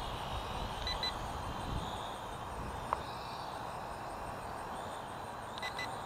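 Short electronic beeps from a Syma X5UC quadcopter's handheld transmitter as its buttons are pressed, a pair about a second in and another pair near the end, with a single click near the middle, over steady wind noise on the microphone.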